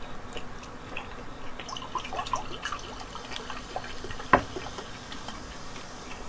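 Cola poured from a large plastic bottle into a ceramic mug, with short rising trickling sounds as the mug fills, and a single sharp click about four seconds in.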